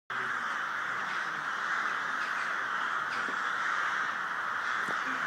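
A huge flock of crows calling all at once: a dense, unbroken din of cawing that holds at a steady level.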